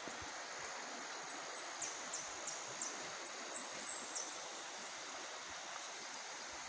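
Steady rushing of a shallow, rocky river. From about one to four seconds in, a bird gives a quick run of about a dozen thin, high notes, some of them short downward strokes.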